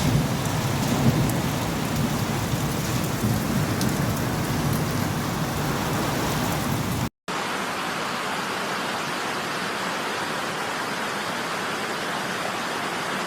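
Heavy rain pouring down: a dense hiss with a low rumble and scattered spattering ticks. About seven seconds in, the sound cuts out briefly and gives way to a steadier, smoother hiss of rain with less rumble.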